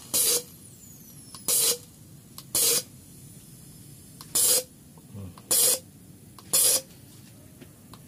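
A Nissan MR18 engine's number one fuel injector firing on a bench injector tester, fed by a pressurized can: six short sprays, each under half a second, roughly a second or a second and a half apart and not evenly timed. The mechanic says this injector is acting up and sometimes misses.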